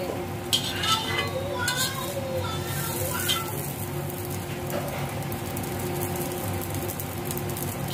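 Egg-coated bread slices sizzling in oil on a tava, with a metal spatula scraping and clicking against the pan a few times in the first few seconds as the slices are lifted out.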